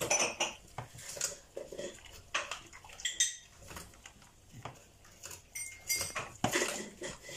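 Wire fox terrier gnawing into a whole watermelon, its teeth crunching and scraping at the rind in irregular bites.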